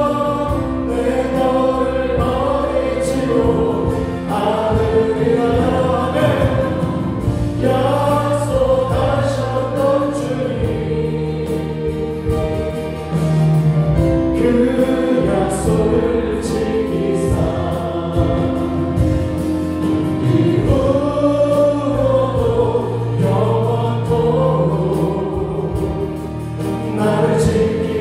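Gospel worship song sung by a group of voices, backed by a live band of keyboards, bass guitar and drums, playing on without a break.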